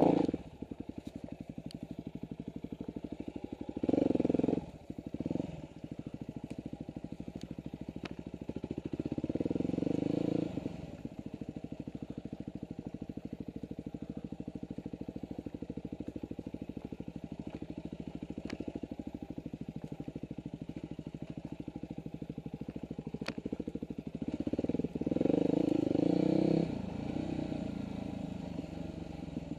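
Dirt bike engine running at low speed over rough trail, mostly a steady putter with brief bursts of throttle about four seconds in, around ten seconds in, and again near the end.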